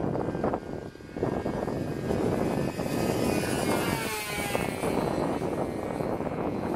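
Radio-controlled model airplane's motor and propeller whining as it flies low past, the pitch dropping as it goes by about four seconds in.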